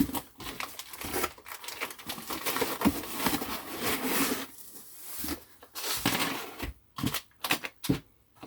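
Kit packaging rustling and crinkling as parts are handled and put back in the box, with a few short sharp clicks and knocks near the end.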